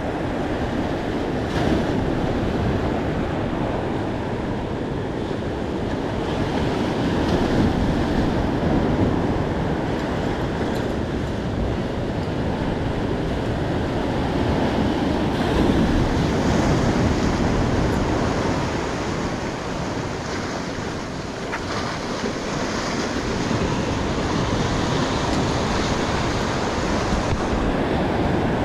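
Ocean surf breaking and washing over a rocky shore in a steady roar that swells and eases every few seconds, with wind buffeting the microphone.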